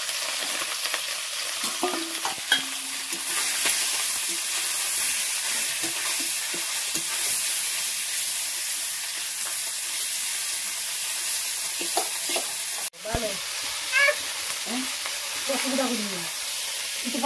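Pieces of catfish frying in hot oil in a steel kadai: a steady sizzle, with a metal spatula scraping and clicking against the pan as the pieces are turned.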